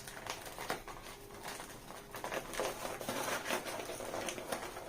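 Paper plant wrapping rustling and crinkling, with small irregular taps and scrapes, as jute twine tied around it is worked loose by hand.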